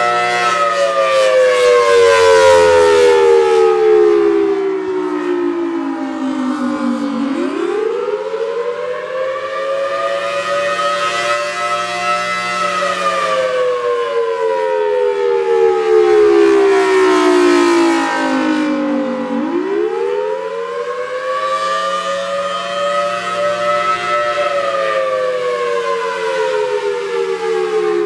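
Federal Signal Thunderbolt 1003A outdoor warning siren sounding the attack signal. Its two-note chord, from a 5/6 port ratio, wails slowly down, sweeps quickly back up about 7 seconds in, falls again and sweeps up once more about 19 seconds in.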